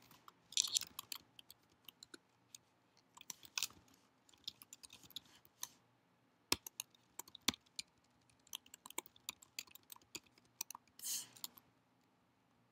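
Computer keyboard keys clicking as code is typed, in irregular runs of faint keystrokes with short pauses between them. Near the end there is a short soft rush of noise.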